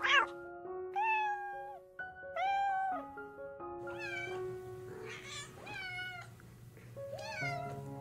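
Domestic cat meowing repeatedly, about six drawn-out meows, each rising then falling in pitch, with the longest a second or so. Soft background music with held notes plays underneath.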